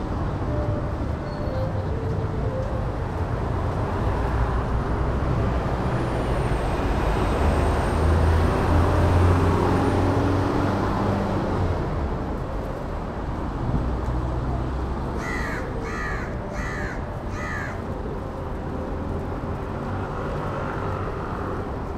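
Steady city street traffic noise. A heavy vehicle's low rumble swells and fades about a third of the way in. Past the middle, a bird calls four times in quick succession.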